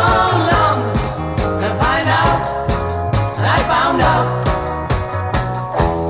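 Background music: a song with a steady drum beat, a bass line and a melody that bends up and down in pitch.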